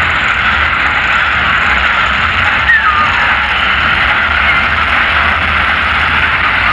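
Supercharged, methanol-burning monster truck engines running, a loud steady din mixed with the noise of a large crowd.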